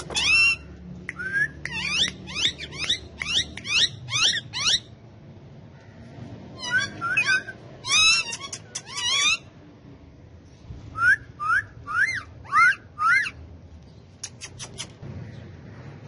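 Indian ringneck parakeets calling: three bouts of quick, shrill, repeated calls, each note sliding steeply in pitch. The last bout, a little over ten seconds in, is about six rising notes.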